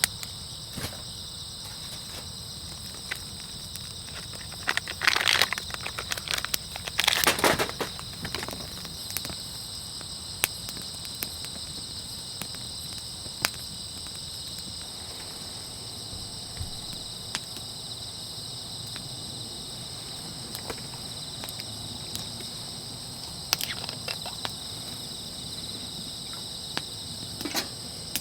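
A steady, high-pitched chorus of night insects. Scattered clicks and rustles of handling come over it, loudest in two bunches about five and seven seconds in, with a few more near the end.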